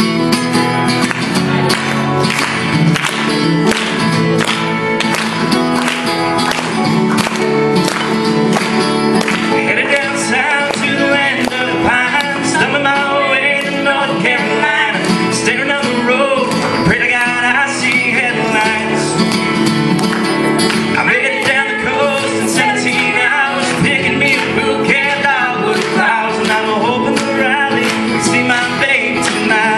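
Live band music: an acoustic guitar and an electric guitar strumming a steady rhythm while male and female voices sing a well-known song.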